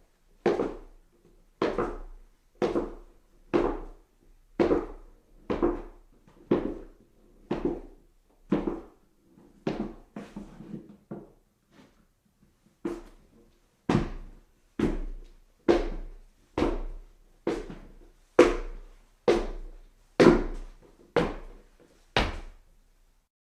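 Footsteps on stairs, slow and even at about one step a second, each a short thud. Around the middle they turn light and stop for a moment, then resume with heavier steps.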